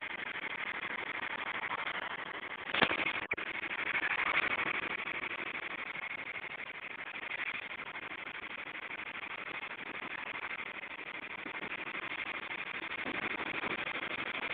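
Steady rushing wind and road noise from a moving vehicle, with a sharp knock followed by a brief dropout about three seconds in.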